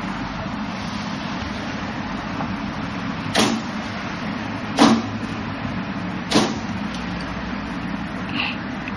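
Forearms and hands striking a Wing Chun wooden dummy: three solid wooden knocks about a second and a half apart, then a fainter one near the end, over a steady background hiss.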